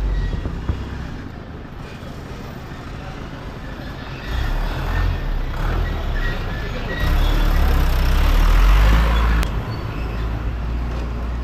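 Street traffic noise with a motor vehicle's engine running close by, swelling to its loudest about eight to nine seconds in, then cut off sharply.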